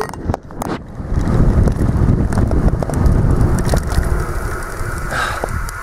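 Wind buffeting the microphone on a fast downhill bicycle ride, with the bike and the hand-held camera rattling and knocking over rough ground. There is a cluster of knocks in the first second.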